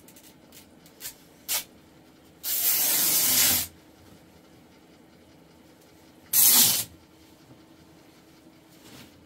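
Spray hissing out of a can or bottle in two bursts: a long one of about a second and a short one a few seconds later, with a few light clicks before them.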